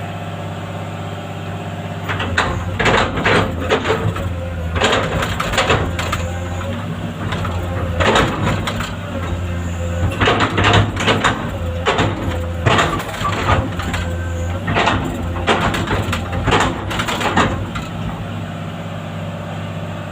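Caterpillar C6.4 diesel engine of a Cat 320D excavator running steadily after an injector replacement. From about two seconds in until near the end, repeated clusters of short clattering noises sound over the engine.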